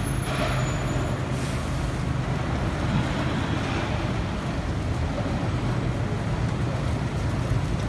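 Steady road traffic on a busy city street: the even noise of passing vehicles over a low engine rumble from heavy vehicles such as buses and lorries.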